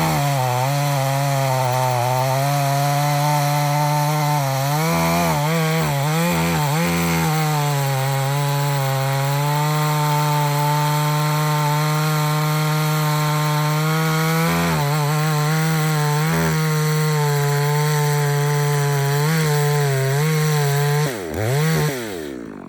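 Farmmac F380W two-stroke chainsaw running at full throttle as it cuts through a large log. The engine note sags briefly a few times under the load. Near the end the revs fall away quickly as the saw is throttled back.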